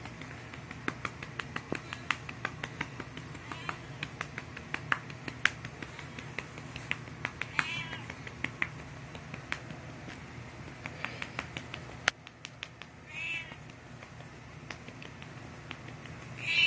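A hand slapping a cat's rump in a quick, light, uneven string of pats, while the cat meows several times in short calls, the loudest one near the end.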